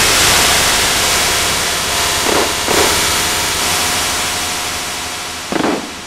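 Loud hiss of static-like noise that slowly fades, broken by two pairs of short pitched blips, one pair in the middle and one near the end.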